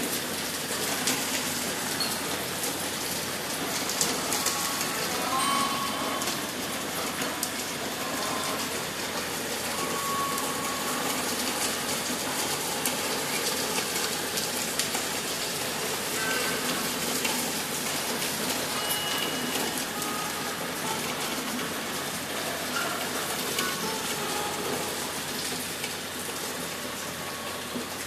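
Heavy rain pouring down: a steady rush of water with many close, sharp drop hits on the paving.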